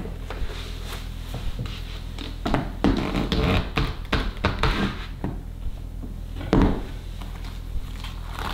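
A stiff hockey skate boot, just heat-softened in the oven, being pulled onto a foot: scratching and rubbing of the boot, with a run of knocks a few seconds in and one louder thump later.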